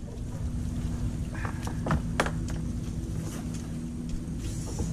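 A few short, sharp knocks and clicks of a kayak and its paddles bumping against mangrove branches, over a low steady hum.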